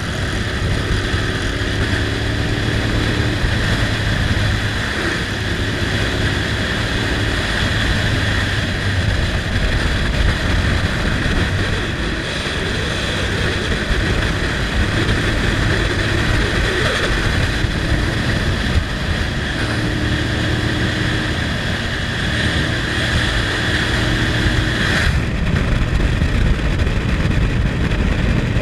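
Motorcycle riding at speed on an open road: a steady rush of wind across the bike-mounted camera's microphone, with the engine running underneath. About 25 s in the sound changes abruptly as the upper hiss drops away.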